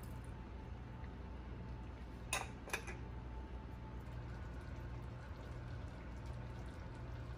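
Kitchen handling sounds over a steady low hum: lemon juice poured into a stainless steel skillet of raw chicken thighs, and two sharp clicks of kitchenware close together about two seconds in.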